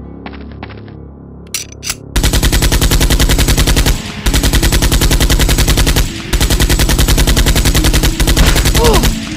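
Automatic machine-gun fire sound effect, laid over the toy blaster: three long bursts of rapid, evenly spaced shots, the first starting about two seconds in and the last the longest. A few light clicks come before the first burst.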